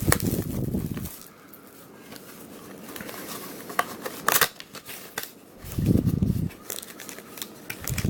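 Cardboard and plastic packaging of a box of baseball cards being opened by hand: crinkling and crackling, sharp clicks, and a few short low thumps of handling.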